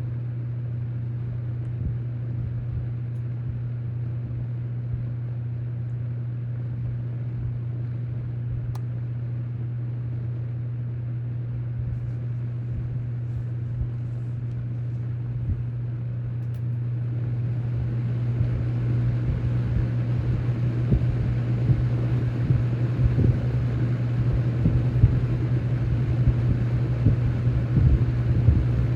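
Toastmaster 20-inch box fan (McGraw-Edison model 4435, with its in-house McGraw-Edison motor and banana-style blades) running, with a steady low motor hum under the rush of air. Around two-thirds of the way through, the air noise grows louder and brighter.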